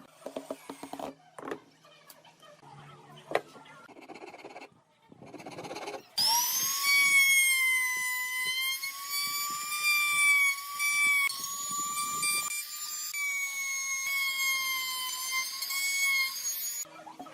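Light scattered taps and knocks of handling. Then about six seconds in, an electric power tool starts with a high-pitched motor whine, quickly rising to speed. It runs at a fairly steady pitch that wavers slightly for about ten seconds, then cuts off abruptly.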